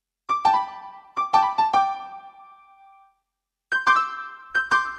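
Short keyboard jingle in a piano-like tone: a quick phrase of struck notes that ring out, a brief pause, then a second phrase of notes starting near the end.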